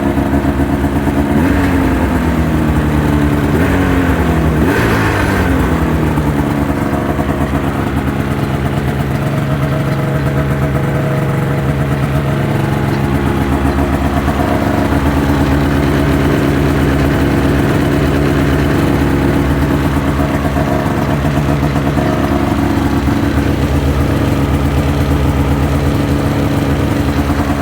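Ski-Doo MX-Z Renegade 600 H.O. SDI snowmobile's two-stroke twin running as it warms up after a cold start. Its engine speed falls over the first few seconds, then holds at a steady idle.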